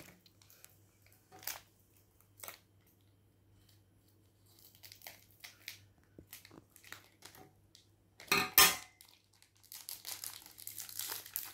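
Plastic wrapping crinkling and rustling as a small package is unwrapped by hand, in scattered short bursts with a quiet stretch in the middle. A louder burst of crinkling comes about eight seconds in, and denser crinkling follows near the end.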